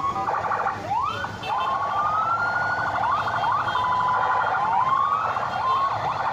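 Several emergency-vehicle sirens wailing at once, their rising sweeps overlapping out of step. One of them briefly holds a steady tone about four seconds in.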